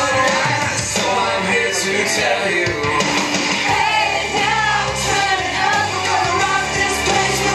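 A recorded song with a singing voice over a steady beat.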